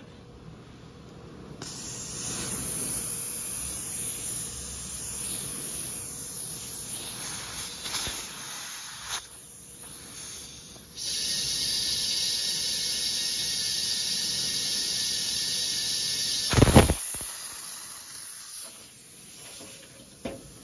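Compressed air hissing from an air chuck pressed onto the valve stem of a riding-mower tire, in two stretches, the second louder and steadier. One loud, sharp thump comes near the end.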